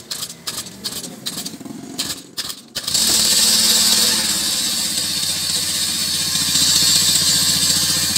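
Small two-stroke engine of a backpack power sprayer being pull-started: a few sharp knocks and clicks, then it catches about three seconds in and runs steadily and loudly. It is running on a newly fitted carburettor.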